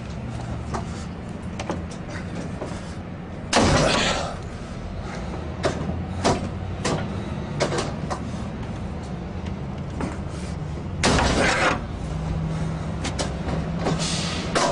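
3 ft steel pry bar working at the lock of an Xpanda steel expanding security gate: scattered metallic knocks and clicks, with two louder grating bursts of about half a second, one about four seconds in and one about eleven seconds in.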